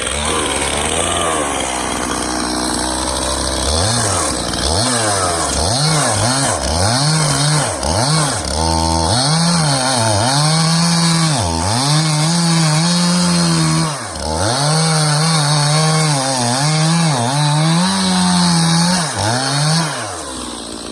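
Stihl MS291 two-stroke chainsaw cutting through a large hickory block. The engine speed dips and recovers over and over as the bar bogs down in the wood. The bar is short for the block, and the saw wants to kick back in the cut. Near the end the engine drops back off the cut.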